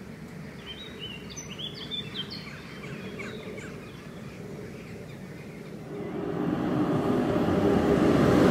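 A bird twittering in a quick run of chirps over steady background noise, then from about six seconds in the growing rush of an ICE high-speed train approaching along the line, getting louder to the end.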